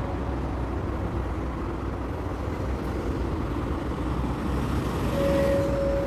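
Road traffic: a steady rumble of passing cars and other vehicles, swelling as one vehicle passes near the end.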